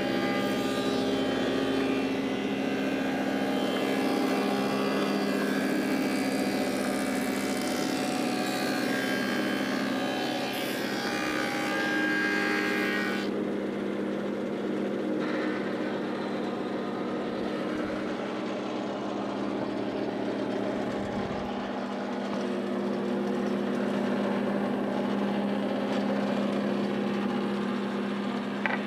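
Woodmaster thickness planer running steadily with a motor hum while walnut boards are fed through it. For about the first half a sharper cutting noise rides on top, then drops away suddenly as the board clears the cutterhead, leaving the machine running. A single click comes near the end.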